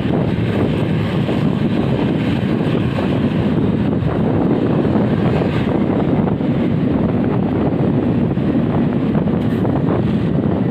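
Steady wind buffeting on the microphone of a moving vehicle, with engine and road noise underneath.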